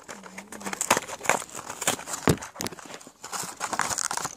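Hands handling plastic blister packaging and toy trains: scattered irregular clicks, knocks and crinkles, with a brief hummed tone at the very start.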